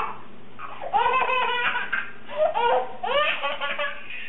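A baby laughing in several short bursts of high-pitched giggles, starting about a second in.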